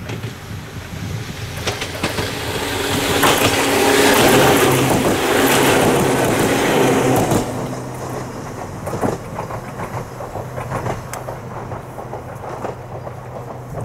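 Ohmi Railway electric train passing close by: the noise of its wheels on the rails builds and is loudest from about three to seven seconds in, with a low steady hum, then drops as the train moves away, leaving a run of clicks as its wheels cross the rail joints.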